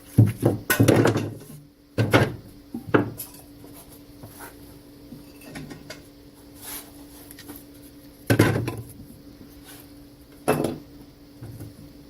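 Wooden Langstroth frame parts knocking and clattering as the top bars are fitted onto the frames in an assembly jig. Several knocks come in the first three seconds, then two sharper ones later.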